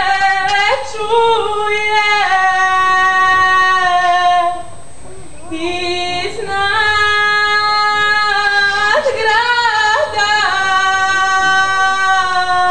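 A woman's voice singing a Bosnian folk song unaccompanied, in long held notes with ornamented glides between them. Two phrases, with a short breath break about four and a half seconds in.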